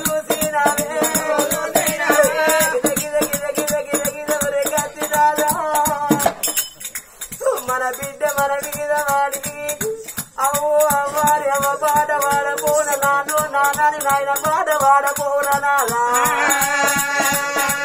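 Telangana Oggu Katha folk music: a drawn-out, wavering melody line over a steady fast jingle of small metal percussion, the melody breaking off briefly about six and a half seconds in and again around ten seconds.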